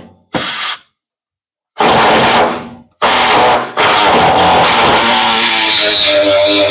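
Pneumatic jigsaw with a metal-cutting blade sawing through the sheet-steel floor of a pickup truck bed. It runs in two short bursts, then steadily from about three seconds in, with a steady whine coming in near the end. It is cutting poorly.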